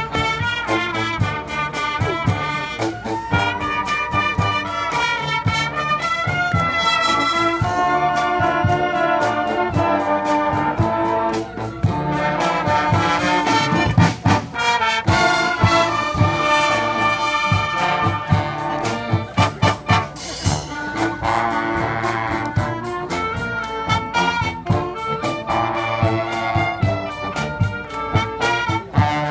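A marching band playing live: trumpets and other brass with saxophones and clarinets carry the tune over a regular beat on a drum kit.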